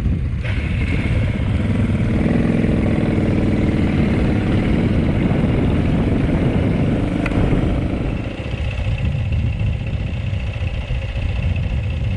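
Dirt bike engine running while riding a trail, its note rising and working harder for several seconds, then easing off after about eight seconds.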